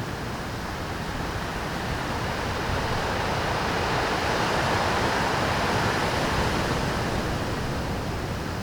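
Pacific surf breaking against shore rocks in rough seas: a steady wash of waves that swells to a peak about halfway through and eases off again.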